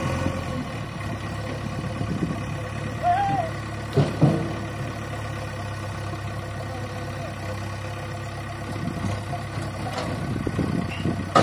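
JCB 3DX backhoe loader's diesel engine running steadily as its front bucket tips logs into a tractor trolley. Sharp knocks of logs landing come about four seconds in and again at the end.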